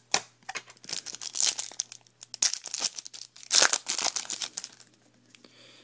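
Foil wrapper of a Topps Chrome trading-card pack being torn open and crinkled by hand: irregular crackling, loudest about a second and a half in and again around three and a half seconds, dying away near the end.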